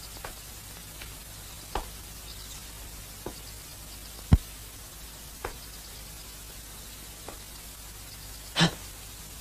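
Steady hiss of an old film soundtrack, broken by a few scattered short clicks and thuds. The loudest is a sharp thud about four seconds in, and a longer one comes near the end.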